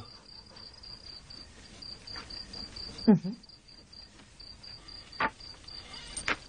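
Crickets chirping with a steady pulsing high chirp. A short voice sound comes about three seconds in, and two sharp clicks near the end.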